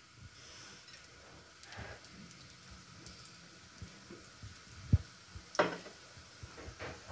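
Ghee sizzling faintly around the edges of a corn-flour and jaggery roti cooking on a tawa. A sharp knock about five seconds in, then two shorter clinks.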